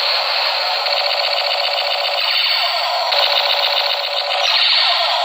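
Electronic toy-gun firing sound effect, a rapid, continuous stream of repeated shots from a small speaker, changing pattern about three seconds in.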